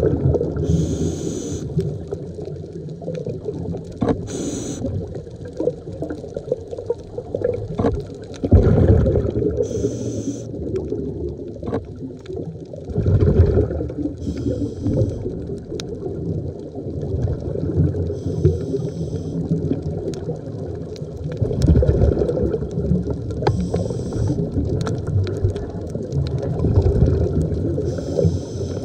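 A scuba diver's breathing heard underwater through a regulator: a hiss of inhaled air every four to five seconds, and loud rumbling gushes of exhaled bubbles.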